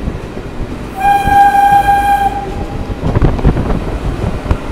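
Train horn sounding one steady blast of about a second and a half, starting about a second in, over the rumble of a moving passenger train; the rattle and clatter of the coach grow louder near the end.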